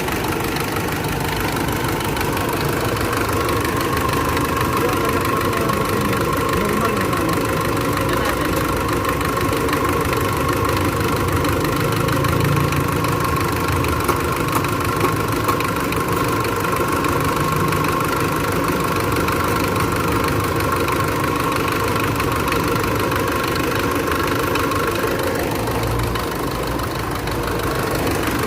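Mitsubishi engine idling steadily with a light, fine tick in its running, which the mechanic judges normal rather than a real knock.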